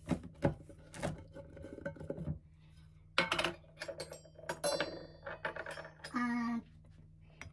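Kitchen utensils and a plastic measuring cup clinking and knocking against a glass mixing bowl and the countertop as flour is measured out: a scatter of separate short clicks, a few with a brief ring.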